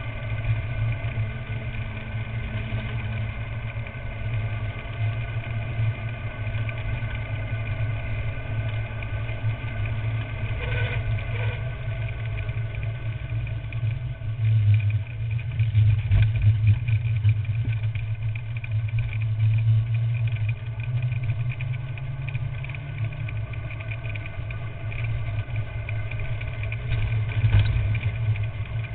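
Steady low rumble of wind on the microphone and road noise from a carrilana, an unpowered gravity-racing kart, rolling fast downhill on small solid wheels over asphalt. It grows louder for several seconds around the middle, with a few brief knocks from bumps.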